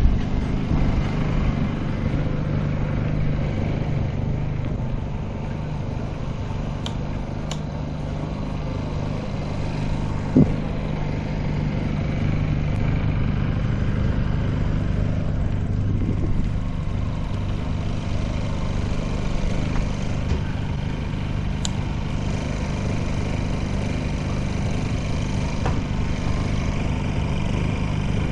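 Motor vehicle engine running steadily at low speed, heard from on board while riding. A single short knock about ten seconds in.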